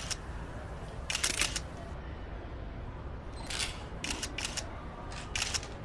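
Camera shutters clicking in quick bursts of several clicks each, four or so times over a few seconds, over a faint steady low background.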